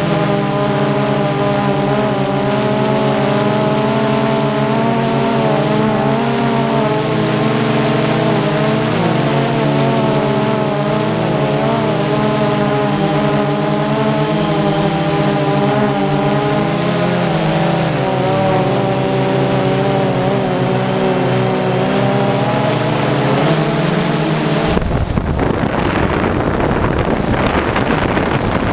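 Multirotor drone's propellers whining in a stack of tones that waver up and down as the drone manoeuvres. About 25 seconds in it cuts abruptly to wind noise on the microphone.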